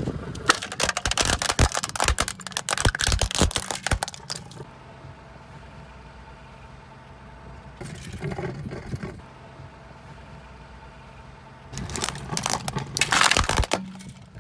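A toy plastic balalaika cracking and crunching as a car tyre rolls over it, for about four seconds. A low steady hum follows, with the broken plastic pieces rattling briefly about eight seconds in, then loud crunching again near the end as the tyre crushes the fragments.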